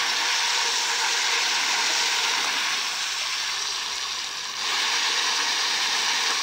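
Water spraying and hissing off an electric bike's wheel as it spins in shallow river water under motor power. The spray eases off about three seconds in, then surges back to full after a brief dip.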